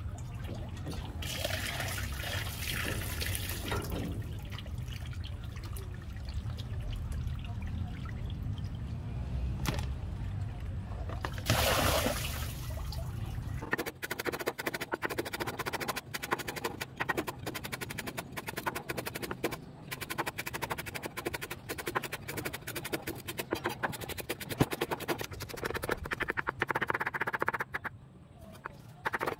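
Water sloshing as raw fish is rinsed by hand in a plastic basin, with a louder pour or splash about twelve seconds in. From about fourteen seconds on, a cleaver chops rapidly on a wooden cutting board, mincing lemongrass.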